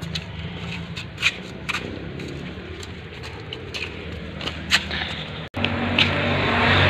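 Light, irregular clicks of a child's sandals slapping on a concrete path as she walks, over a low steady hum. After a cut a little over five seconds in, a louder steady rushing noise takes over.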